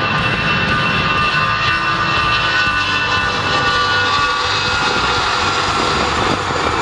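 Twin-engined Airbus A320-family jet airliner running at high power on its takeoff roll as it passes close by. Several high fan whines slide slightly lower, and a broad rushing jet noise grows in the second half.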